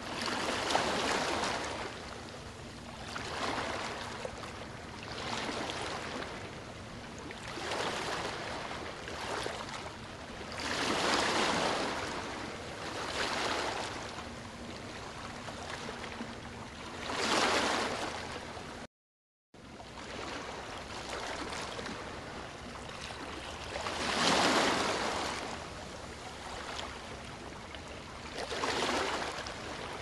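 Whitewater river rapids rushing steadily, swelling louder every two to three seconds. The sound cuts out completely for under a second about two-thirds of the way through.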